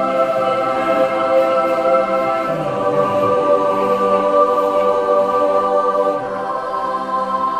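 Choral music: a choir singing long held chords, moving to a new chord about six seconds in.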